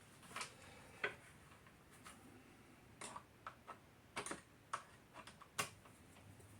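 Faint, irregular light clicks and taps of hand tools and small mower parts being handled, about ten in all.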